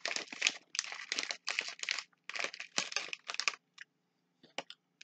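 Plastic candy packaging crinkling as it is handled, in clusters of rustles for about three and a half seconds, then a couple of brief rustles near the end.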